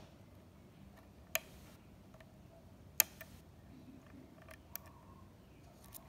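Faint, scattered metal clicks of a hook pick working the pin tumblers of an American Lock 1100 padlock under light tension. The sharpest click comes about three seconds in.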